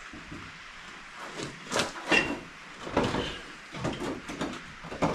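Truck fender being maneuvered into place on the body: irregular knocks, bumps and scrapes of sheet metal, with a couple of short squeaks about two to three seconds in.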